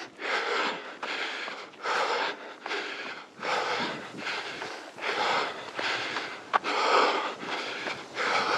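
A runner breathing hard in a steady rhythm of breaths in and out, about one to two a second.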